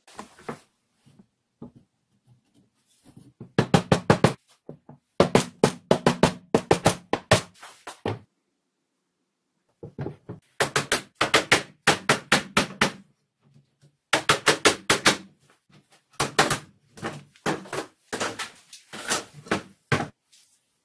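Wooden mallet knocking a mortise-and-tenon lattice frame together, in quick runs of about five sharp wooden taps a second, with short pauses between runs.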